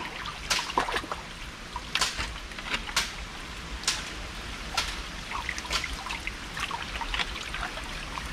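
Shallow creek water trickling and sloshing, with irregular small splashes about once or twice a second as hands and a hand net scoop through a muddy pool.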